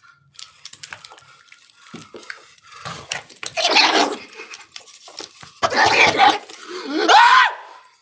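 Cavalier King Charles spaniel choking on a treat, making harsh, ragged gasps as she fights for air, with clicks and knocks as she is handled. A short cry that rises and falls in pitch comes near the end.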